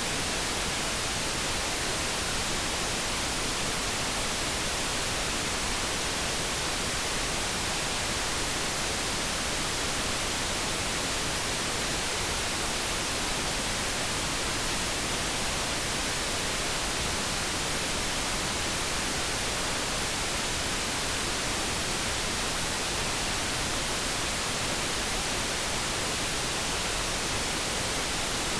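Steady synthetic noise, an even hiss that does not change, with no kettle tones.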